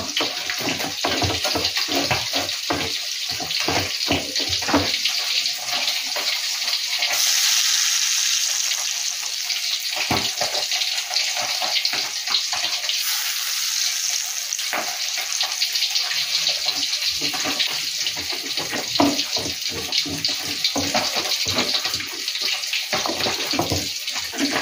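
A pestle grinding chili sambal with shrimp paste in an earthenware cobek: rapid rough scraping and knocking strokes over a steady hiss. The strokes stop for several seconds in the middle while the hiss goes on, then pick up again.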